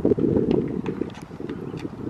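Wind buffeting the microphone in an uneven rumble, with faint irregular footsteps on paving.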